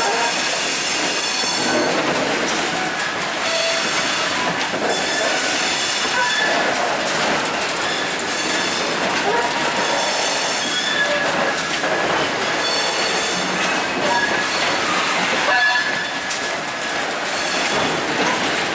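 A long freight train of broad-gauge covered box wagons rolling past: steady loud wheel-on-rail noise with clattering over the rail joints and brief high-pitched wheel squeals.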